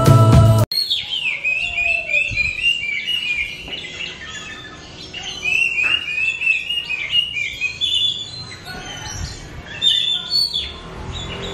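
Oriental magpie-robin singing: quick runs of short, clear chirps and whistles, many of them dropping in pitch, with a quieter pause in the middle. Music cuts off under a second in, just before the song starts.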